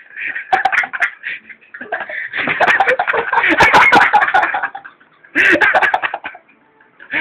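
Loud, harsh human voices in bursts, with sharp knocks and clicks from the phone being jostled.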